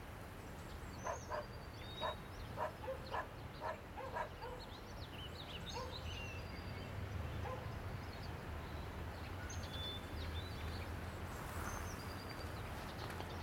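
Outdoor park ambience: a dog barks about eight times in the first few seconds, small birds chirp throughout, and a low steady rumble runs underneath.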